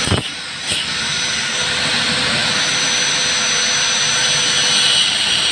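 Electric angle grinder running steadily, its disc grinding into a steel bracket plate, with a continuous high whine over a hiss of metal being ground.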